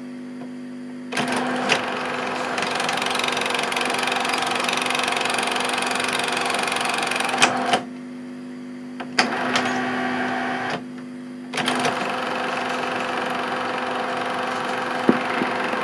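Super 8 film print playing over blank leader: a steady hum with stretches of hiss that cut in about a second in and drop out twice, and a few sharp clicks and pops.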